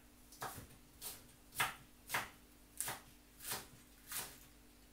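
A kitchen knife chopping spring onions on a cutting board, about seven even cuts a little over half a second apart.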